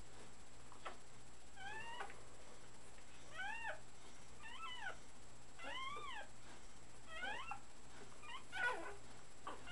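Three-week-old puppies whining and mewling, a string of short high-pitched cries that rise and fall, about one a second, the loudest near the end.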